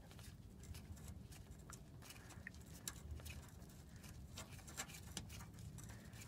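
Faint, scattered small clicks and scrapes from a gloved hand unscrewing a loosened fuel-line fitting and brushing the rags around it, over a low steady hum.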